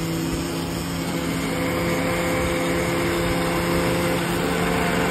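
Electric countertop blender motor running steadily, blending mango milkshake: a constant hum with a few steady tones over a whirring haze.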